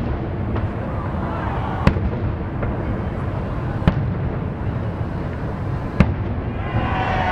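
Fireworks shells bursting about a kilometre away: four sharp bangs roughly two seconds apart.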